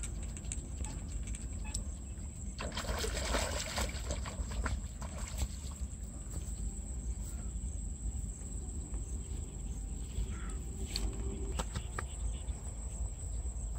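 A hooked fish splashing at the water's surface as it is hauled up and out on a long pole rod, in one noisy burst of splashing about three seconds in. A steady low rumble underlies it.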